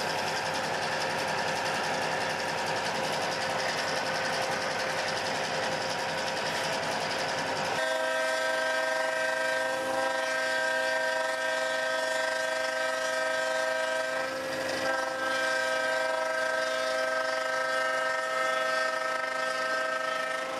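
Diesel locomotive's air horn blowing one long chord blast that starts sharply about eight seconds in, wavering briefly partway through, heard from inside the cab. Before it, the steady running noise of the locomotive's diesel engine fills the cab.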